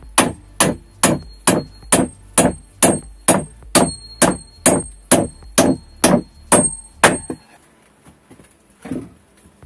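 Hammer driving nails into wooden boards: a steady run of blows, about two a second, with a metallic ring between the later strikes. The blows stop about seven seconds in, and one softer knock follows.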